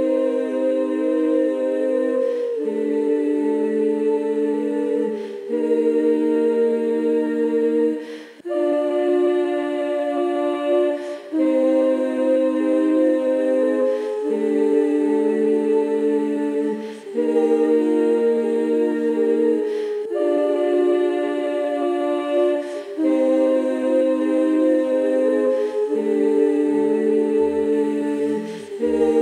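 Layered a cappella vocal loop: one woman's hummed, sustained chords repeating in a cycle that changes chord about every three seconds, with a wavering sung line over the top.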